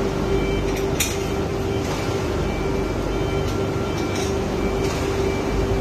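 Steady mechanical drone with a constant low hum, like running machinery, broken by a few brief light clicks.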